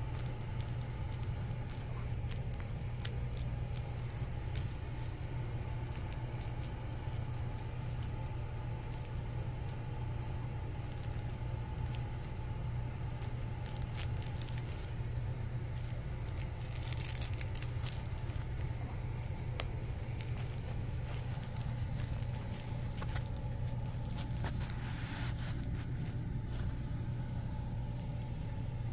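Puppy pads crinkling and rustling, with scattered small clicks, as a shih tzu puppy noses and mouths a plush toy on them, over a steady low hum.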